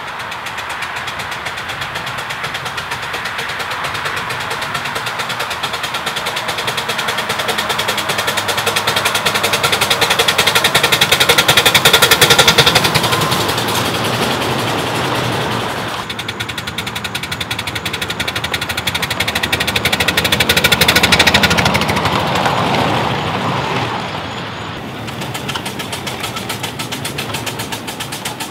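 A 2.5-inch scale wood-burning live steam locomotive and its coach running past on a 7.5-inch gauge track, making a fast rhythmic clatter that swells as the train draws close and fades as it moves off. This happens twice.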